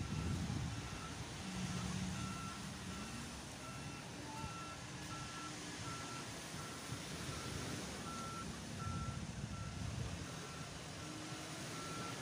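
Reversing alarm of a beach-cleaning tractor beeping steadily, about two beeps a second, over a low rumble.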